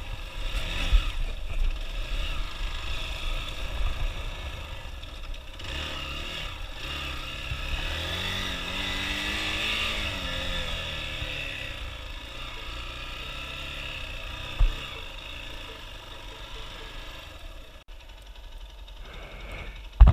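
Hero XPulse 200 motorcycle's single-cylinder engine running under way on a dirt trail, revving up and easing back off around the middle, with clatter over rough ground and one sharp knock a few seconds later.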